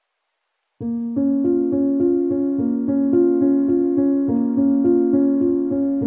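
Background piano music that starts after a short silence, a little under a second in, with a steady run of repeated notes, about three a second.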